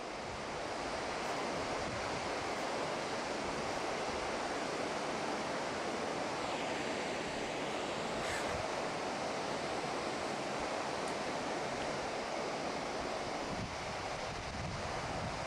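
Steady rushing outdoor noise of wind and water, with a faint click about eight seconds in.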